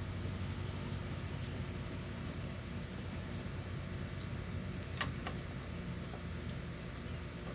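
Light rain pattering as scattered small ticks on the truck and its surroundings, with two sharp clicks close together about five seconds in.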